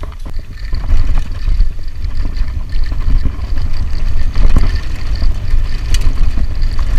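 Wind rumbling over the camera's microphone as a mountain bike speeds down a dirt trail, with scattered clicks and knocks from the bike jolting over bumps, one sharp knock about six seconds in.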